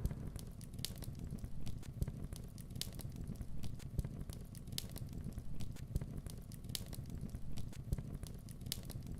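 Sound effect of steady crackling: irregular sharp pops and snaps over a low rumble, cutting off abruptly at the end.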